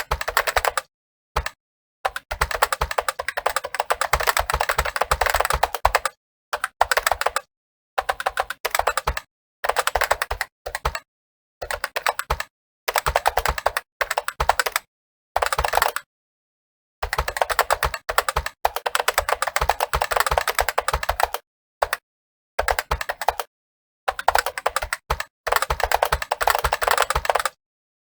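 Fast typing on a computer keyboard: rapid, continuous key clicks in runs of several seconds, broken by short pauses.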